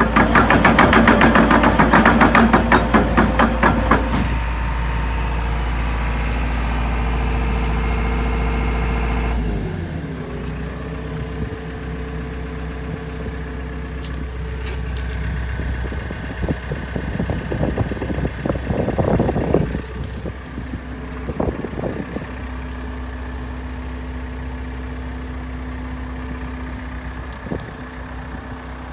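JCB JS130LC tracked excavator's diesel engine running. A rapid loud clattering comes in the first few seconds, then the engine runs steadily at higher revs. About ten seconds in the revs fall away to a lower idle, and a few brief louder surges come later.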